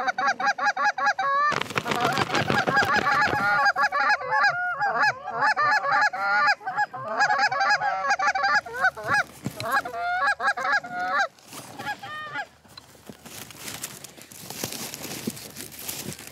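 Loud, rapid goose honking and clucking, several voices overlapping, for about eleven seconds, with a last few honks a second later. Then dry corn stalks crackle and rustle right at the microphone.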